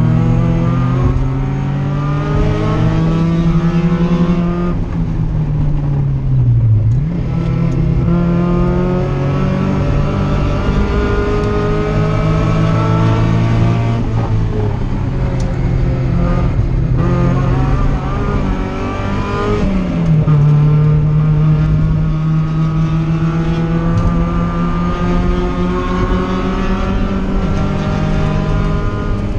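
1994 Mazda Miata's engine, heard from inside the cabin, pulling hard on track: its pitch rises repeatedly, dropping sharply at gear changes or lifts about a third of the way in and again about two thirds in.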